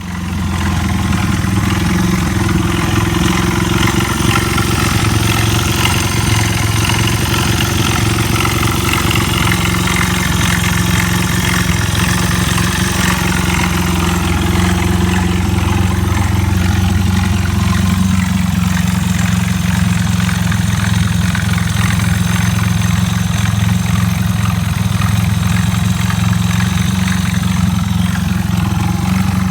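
Honda Ape's small single-cylinder four-stroke engine idling steadily, making an abnormal noise from the engine.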